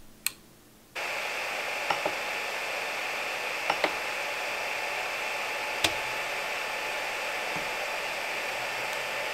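A click just after the start, then about a second in a steady whir starts up abruptly and runs on, with a few light clicks: an Ender 3 Pro 3D printer's fans and stepper motors running during a movement test.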